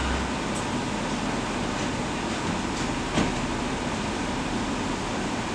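Steady, even background noise with no words, broken by one short knock about three seconds in.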